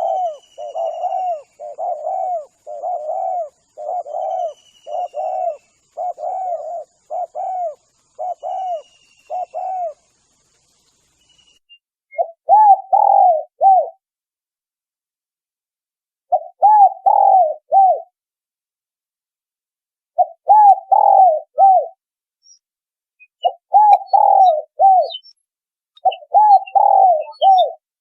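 Spotted dove (tekukur) cooing: a steady run of short coos about two a second for the first ten seconds, then grouped coo phrases of a second or two, repeated every few seconds. Faint high chirps of small birds come in near the end.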